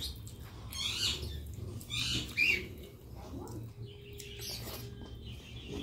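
Close-up eating sounds: fingers mixing rice on a plate, then wet chewing and lip-smacking, in a few short bursts over a low steady hum.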